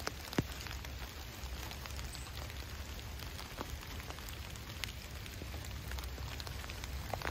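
Steady rain falling, with scattered sharp drop ticks, one louder about half a second in, over a low steady rumble.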